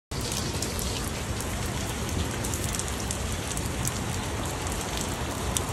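Steady rain falling, with scattered sharp drips and splashes of water running down a metal cup-style rain chain.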